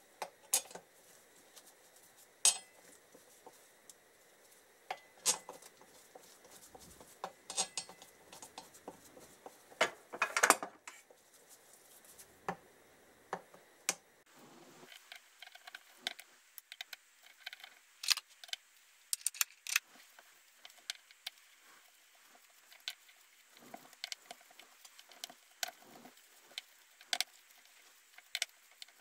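Brake disc bolts clinking against the steel disc and wheel hub as they are set in place and turned in with a hex key: scattered sharp metallic clinks and ticks, with the loudest cluster about ten seconds in.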